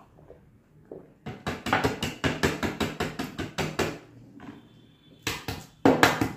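Rapid, evenly spaced knocking, about seven sharp knocks a second, in two runs with a pause of about a second between them.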